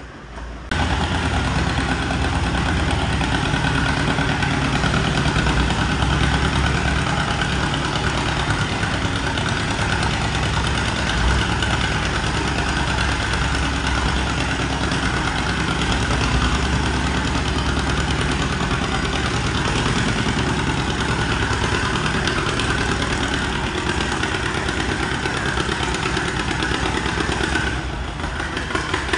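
Antique John Deere two-cylinder tractor engine running hard under load as it drags a weight-transfer sled in a pull. It cuts in suddenly about a second in, holds steady and loud, and dips briefly near the end.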